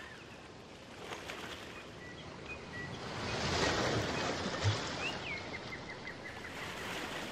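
Outdoor nature ambience: a rushing noise that swells and fades around the middle, with scattered short high chirps.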